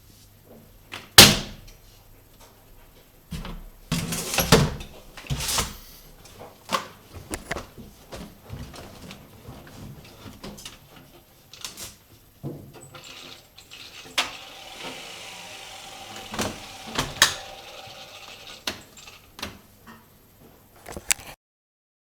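A string of clicks, knocks and handling noises around a washing machine's door, with a sharp click about a second in and a stretch of rustling in the middle. The drum is not running.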